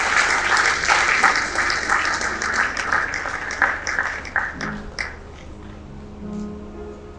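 Audience applause with many separate claps, dying away about five seconds in.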